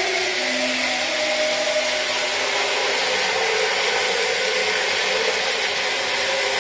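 A 12 V 775 DC motor driving a 3D-printed water pump, running steadily with a whirring hiss and a whine whose pitch wavers slightly.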